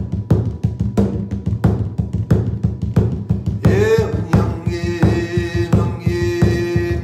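A drum beaten in a steady, even beat, about three strikes a second, during a healing meditation. About halfway through, a held sung tone joins the drumming.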